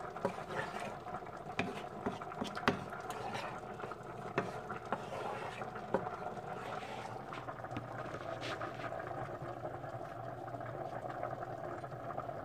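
Wooden spoon stirring a thick cream sauce in a skillet, scraping the pan with sharp taps now and then, over a steady background simmer.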